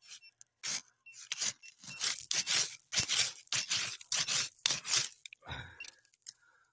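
Hand digging in loose river sand and gravel: a quick run of scrapes and crunches, about two or three a second, as the soil is scooped out and slides back. A metal-detector pinpointer gives a few short beeps in the first two seconds.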